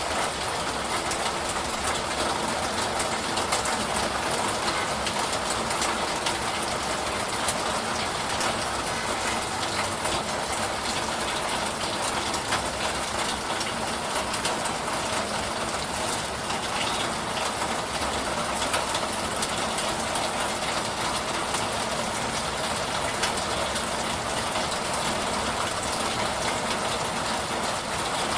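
Steady rain, a dense even hiss with a fine patter of drops.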